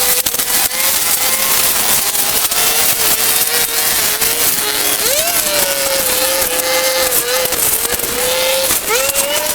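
A motor or small engine running steadily with a constant hum and hiss; its pitch rises briefly about five seconds in and again near the end, then settles back.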